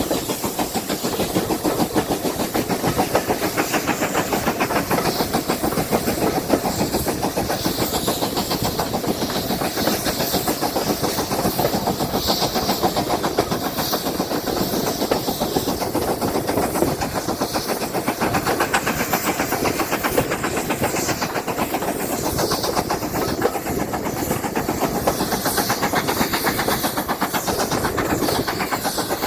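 Railway train running along the track, a steady continuous wheel-on-rail noise.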